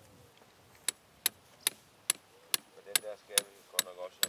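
Hammer blows on metal at a steady pace, about two to three a second, each with a short ringing tail, starting about a second in. Faint voices come in near the end.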